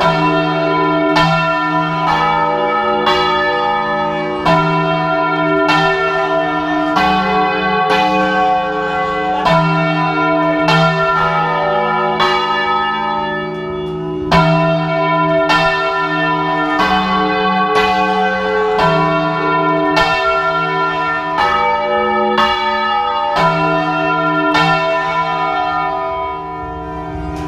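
Several church bells being swung full-circle by hand in a volteo, heard close up in the belfry. Each bell strikes as it turns over, and the strokes overlap into a loud, continuous peal, with the deepest notes alternating between bells.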